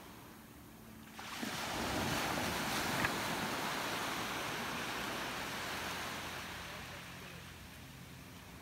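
Wave washing up on the shore: a broad rushing swell that rises about a second in and slowly fades away over several seconds.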